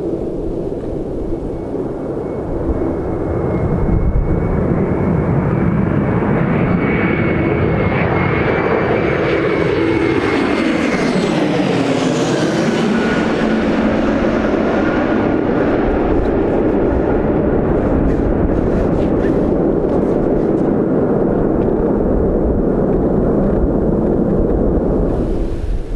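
Airbus A321-211 airliner's CFM56 turbofan engines on final approach: a steady jet roar with a whine that glides down in pitch about halfway through as the jet passes and touches down, then a steady rumble as it rolls out.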